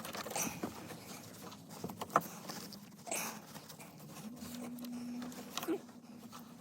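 Scattered clicks, taps and scrapes of hands and a tool working on a car dashboard to remove a stereo. A faint steady low hum comes in for about two seconds in the second half.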